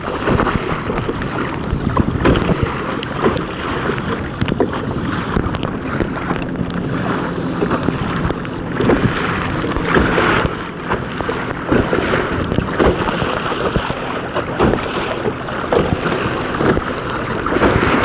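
Wind buffeting the microphone over water slapping and splashing against the hulls of a Hobie Tandem Island sailing kayak moving through choppy water, with many short gusts and splashes.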